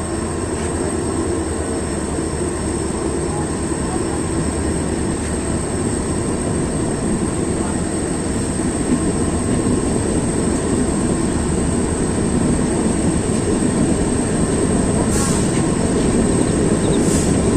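Train running on the rails: a steady rumble of wheels and track noise that slowly grows louder.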